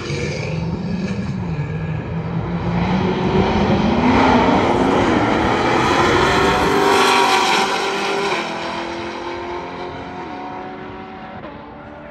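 Race cars accelerating hard at full throttle. The engine pitch climbs in several steps with short drops at the gear changes, is loudest around the middle, then fades as the cars pull away.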